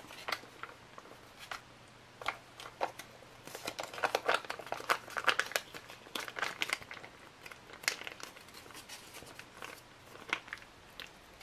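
Foil MRE retort pouch crinkling and crackling as it is squeezed to push spaghetti in meat sauce out onto a stainless steel tray. The crackles are scattered, busiest in the middle.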